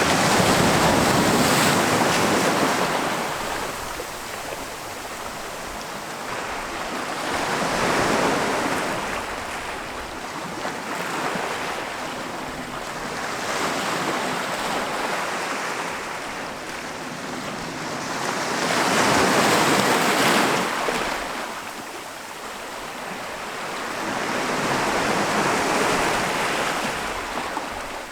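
Ocean surf breaking on a beach: a wave crashes and washes up about every five to six seconds, each one a rush of noise that swells and fades. The loudest breaks come at the start and about two-thirds of the way through.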